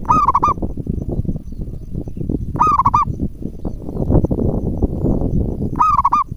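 Zebra dove (perkutut) calling: three short, quavering coo phrases, each about half a second long and roughly three seconds apart, over a steady low rumbling noise.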